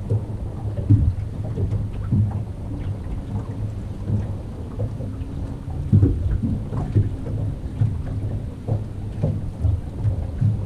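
Water slapping against a boat hull: irregular low thumps and small knocks over a steady low rumble.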